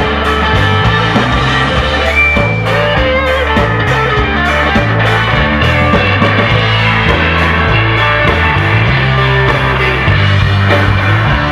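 Rock music with electric guitar over a steady bass line and drum beat.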